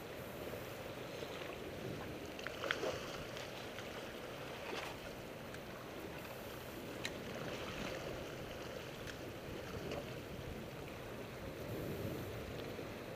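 Steady wash of ocean water and wind, with a few faint clicks.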